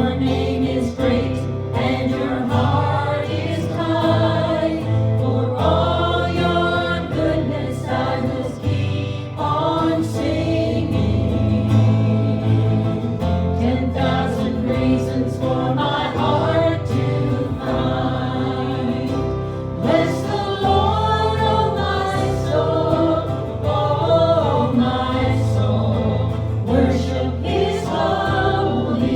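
Group of voices singing a worship song together over a steady instrumental accompaniment.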